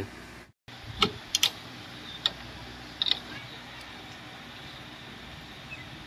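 A few sharp, light metallic clicks and taps from hands handling a motorcycle's exposed clutch parts, spaced irregularly over the first three seconds, over a quiet steady background.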